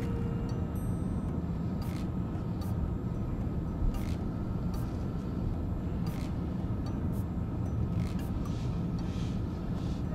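Car engine idling, heard from inside the cabin: a steady low hum, with scattered faint clicks about once a second.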